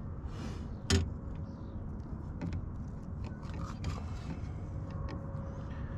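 Handling noises as a freshly landed bass is dealt with in a kayak: soft rustling and scattered small clicks, with one sharper knock about a second in.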